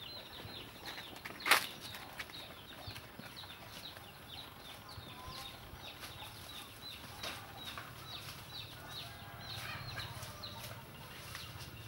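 Birds chirping in quick, short, falling notes several times a second, with one sharp crack about a second and a half in.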